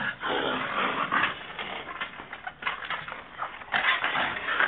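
Irregular scuffling and clattering as a pit bull puppy tugs at and carries a wooden rake handle in its mouth, its paws scrabbling on dirt.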